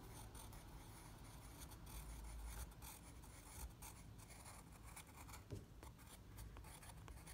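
B graphite pencil writing a signature on textured drawing paper: faint, quick, short pencil strokes.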